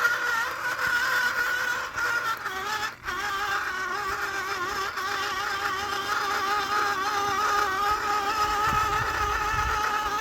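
Axial SCX10 II RC crawler's electric motor and gear drivetrain whining steadily as it crawls, the pitch wavering slightly with throttle and load, with a brief let-up about three seconds in.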